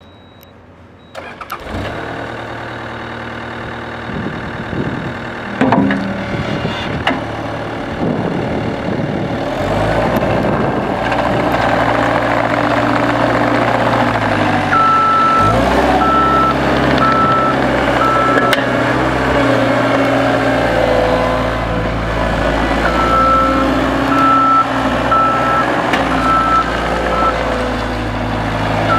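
Caterpillar 259B compact track loader's diesel engine starting about a second in and then running, getting louder from about ten seconds as it is worked. Its reversing alarm beeps at about one beep a second in two spells, in the middle and again near the end.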